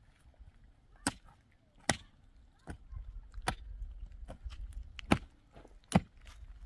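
Pickaxe and digging tools striking hard, stony soil while a foundation trench is dug by hand: a series of sharp strikes, about one every second, with a low rumble underneath from about three seconds in.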